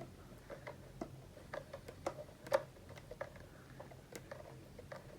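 Screwdriver driving the screws that close an analog multimeter's back case: faint, irregular small clicks and ticks, with one sharper click about two and a half seconds in.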